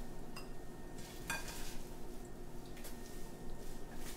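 Raw kale leaves rustling and crinkling as handfuls are dropped from a glass bowl into a slow cooker, with a couple of light clicks in the first second and a half.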